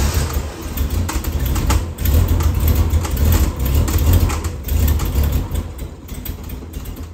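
Triumph TR6 2.5-litre straight-six engine just started and running unevenly, its level rising and falling, then dropping off near the end. It is cold, and the owner suspects a large vacuum leak at the carburettors.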